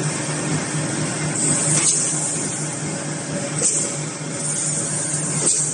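Chain link fence making machine running: a steady mechanical drone with a fast pulsing hum, and a hissing rush that swells about every two seconds.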